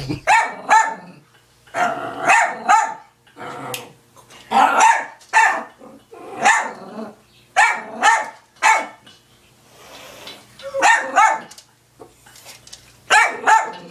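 A dog barking repeatedly in short runs of two or three loud barks, a run every second or two, with short pauses between.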